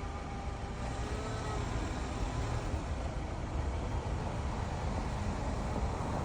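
2020 Subaru Crosstrek whining as it pulls away from a stop, likely in reverse: several steady whine tones over the first couple of seconds, then fading into a low running and road rumble. The owner hears this whine only once the car has been driven for 20-30 minutes, and has not yet had it diagnosed.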